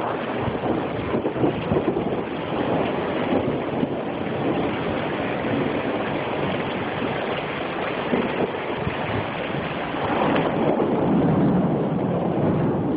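Thunderstorm: steady rain and wind, with wind buffeting a phone's microphone. A low rumble, most likely thunder after the lightning flash, swells louder about ten seconds in.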